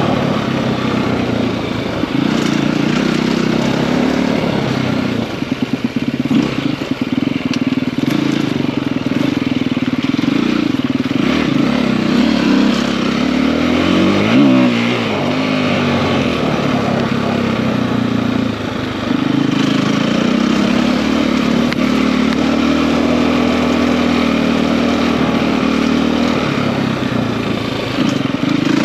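KTM 250 EXC-F enduro bike's four-stroke single-cylinder engine, bored out to 280, running under way at mostly steady revs. About five seconds in the sound turns choppy for a couple of seconds, and about halfway through the revs drop sharply and climb straight back.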